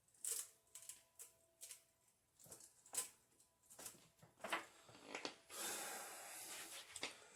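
Irregular clicks and light rattles of an RC rock crawler's hard plastic body and chassis being handled and shaken, the velcro-mounted body staying put, followed near the end by a longer rustling scrape of handling.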